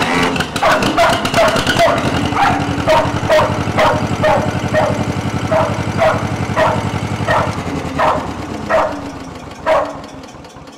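A John Deere 420 tractor's two-cylinder engine running just after being started on its repaired starter, while a dog barks over it about three times a second, the barks thinning out near the end.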